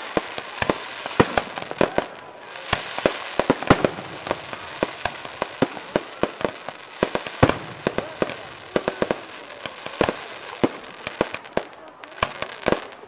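Aerial firework shells bursting overhead in a rapid barrage of sharp bangs, several every second, with a dense cluster about three seconds in.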